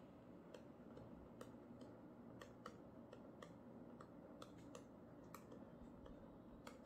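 Near silence with faint, irregular light clicks, about two a second: the tip of a stylus tapping and lifting on a touchscreen while handwriting.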